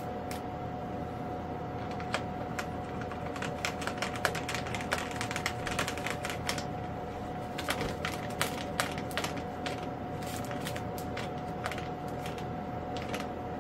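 Hand screwdriver driving screws into a foam RC jet's airframe, with irregular small clicks and ticks as the screws are turned and the parts handled, over a faint steady hum.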